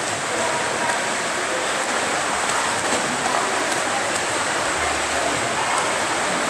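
Steady splashing and churning of an indoor swimming pool's water as swimmers swim laps.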